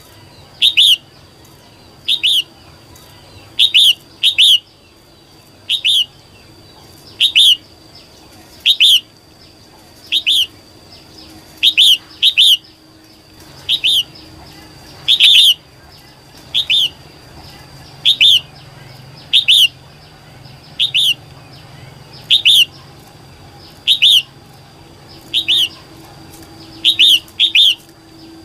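Female red-whiskered bulbul calling: short, sharp notes repeated about once a second, now and then in quick pairs, over a faint steady high tone.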